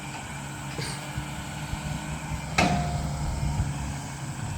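Engine of a Volvo demolition machine running steadily, with a sharp metallic clank about two and a half seconds in and a lighter knock about a second in.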